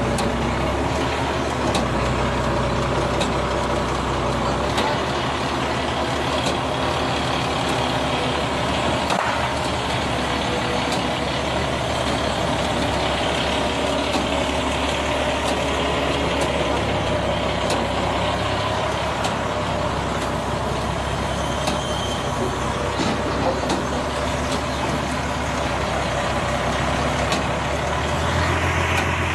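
Large forklift's engine running steadily under load as it holds and lowers a heavy lathe, its note shifting a few times.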